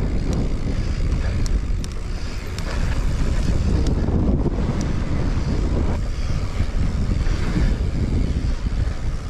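Strong wind rumbling over an action camera's microphone while a mountain bike rolls over sandstone slickrock, with a few light clicks and rattles from the bike.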